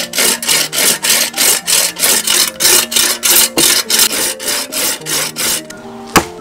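Coarse-toothed hand saw cutting through a raw cow leg bone on a wooden chopping block, in quick even back-and-forth strokes of about four a second. The sawing stops, and near the end a cleaver strikes the bone once with a sharp knock.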